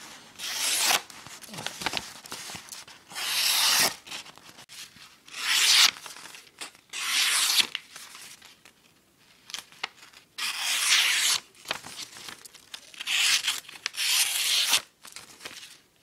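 The small blade of a Victorinox Camper pocket knife slicing through a sheet of paper in about seven separate strokes. Each cut is a short papery hiss, with short pauses between.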